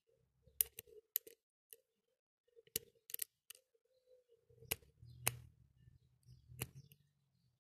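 Curved hook pick and tension tool working the pin tumblers of a brass Bane padlock: about ten sharp metallic clicks at irregular intervals as the pick lifts the springy pins and they snap back. A faint low hum sits under the second half.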